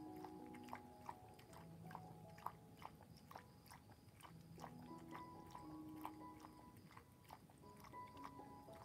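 A senior dog eating snack treats from a bowl, with many irregular crisp crunches as it chews. Soft background music with slow held notes plays underneath.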